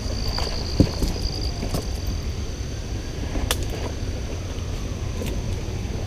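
Outdoor ambience of a steady high insect drone over a low rumble of wind on the microphone, with a few scattered knocks and clicks; the loudest is a low thump about a second in.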